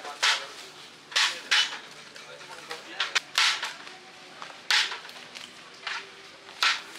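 Clear plastic takeaway food containers being handled: a series of sharp plastic clacks at irregular intervals, about one or two a second, as lids are snapped shut and the boxes are set down and stacked on a steel table.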